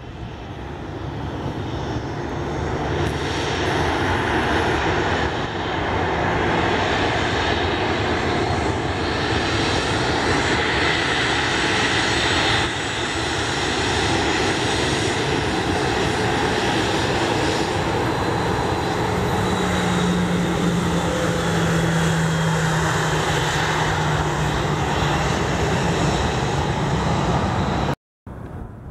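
Boeing 737 jet engines running at taxi power as the airliner taxis close past. The roar builds over the first few seconds, then holds steady with a low hum underneath, and cuts out abruptly near the end.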